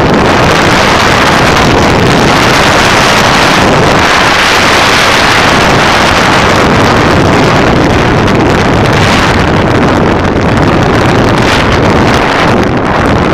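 Steady, loud wind noise on the microphone of a camera mounted on a moving motorcycle, with the motorcycle's engine running underneath.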